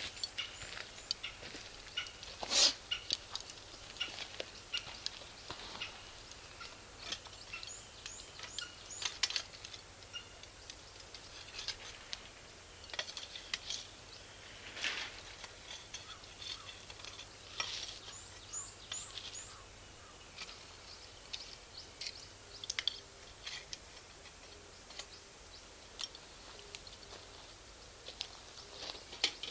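Campfire of Iwate cut charcoal crackling with irregular sharp pops, the loudest about two and a half seconds in. Small birds chirp in short runs of high notes in the background.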